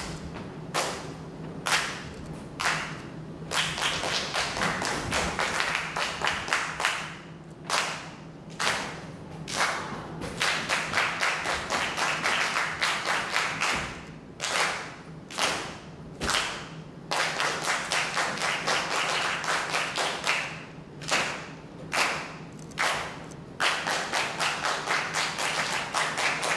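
Dancers' rhythmic hand claps and thumps, struck in quick runs broken by short pauses, over a low steady hum.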